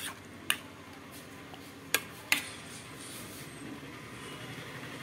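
Metal spoon clinking against a stainless steel bowl while stirring yogurt-marinated chicken: four sharp clinks in the first two and a half seconds, over a steady low background noise.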